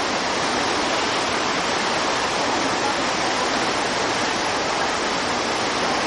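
Fast mountain river rushing over rapids: a steady, loud hiss of white water with no breaks.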